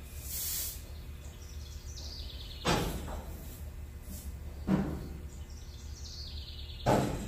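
Air-bag suspension on a Ford F100 being aired up and down: a brief hiss, then three sudden bursts about two seconds apart, each fading quickly. Birds chirp faintly between them.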